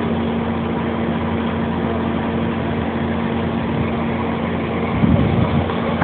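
Fire trucks' engines running steadily with a constant droning hum. A short louder rumble comes about five seconds in.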